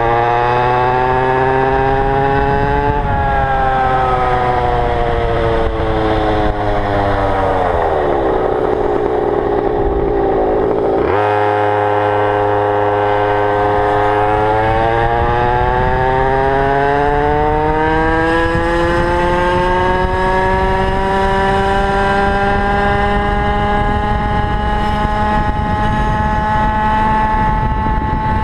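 Go-Ped GTR scooter's small two-stroke engine running under way. Its pitch rises, then falls away for several seconds as the throttle comes off, jumps back up suddenly about eleven seconds in, and climbs steadily as it accelerates again. It runs on a 25:1 fuel mix, which the rider wonders may be too rich.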